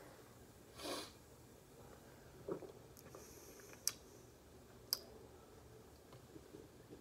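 Quiet kitchen room tone with a few small handling sounds: a brief soft rush about a second in, a light knock, then two sharp clicks about a second apart.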